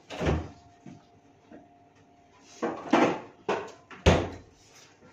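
Refrigerator door being opened and shut: a handful of separate knocks and thumps, the loudest a heavy thump about four seconds in.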